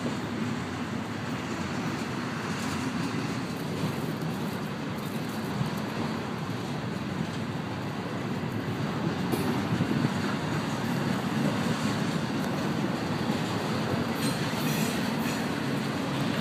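Double-stack intermodal container train rolling past: the steady rolling noise of loaded well cars' steel wheels on the rails.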